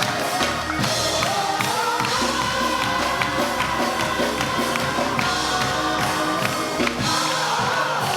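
Gospel music played live: a voice holds a long, slowly bending note over a bass line and steady drum strikes.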